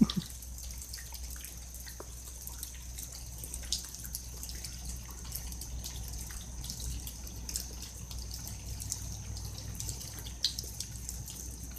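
Rainwater dripping during a thunderstorm: scattered drops ticking irregularly over a steady low hum.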